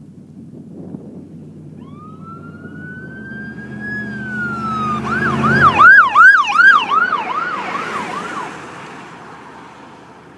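Police car siren passing with its vehicle: a rising wail about two seconds in, switching about five seconds in to a fast yelp of roughly two or three sweeps a second. It is loudest around six seconds in, then fades away.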